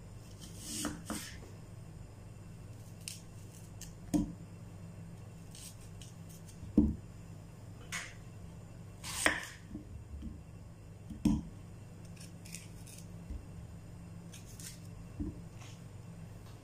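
Kitchen knife cutting red onions on a wooden chopping board: about eight separate knocks of the blade going through onto the board, spaced unevenly with pauses between, over a steady low hum.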